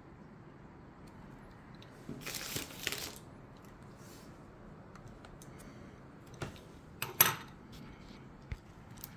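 Handling noise while working on an open laptop: a second of rustling about two seconds in, then a few sharp clicks of small parts and tools being moved on a table, the loudest about seven seconds in.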